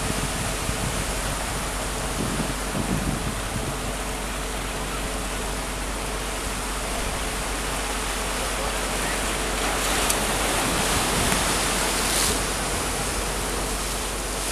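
Steady rushing outdoor noise of wind and water at the shore, swelling for a few seconds about ten seconds in.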